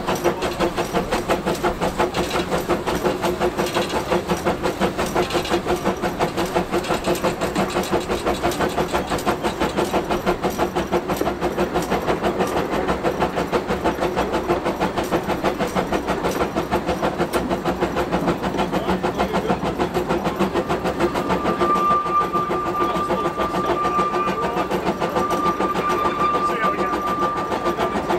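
Small narrow-gauge steam locomotive under way, heard from its cab: a steady, fast, even rhythm of exhaust beats and running gear. About two-thirds of the way through, a steady high tone joins in and holds to near the end.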